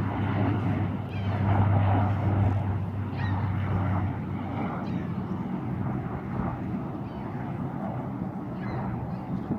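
Bombardier Dash 8 turboprop airliner's propellers and engines droning as it passes. The sound is loudest a second or two in, and its low propeller hum fades away after about four seconds, leaving a fainter rush of engine noise.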